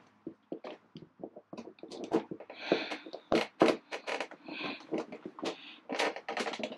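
Bolt clicking and scraping against a powder-coated windscreen mounting bracket in a series of short, irregular knocks as it is forced at a hole it won't go through: the powder coat is so thick the bolt doesn't fit.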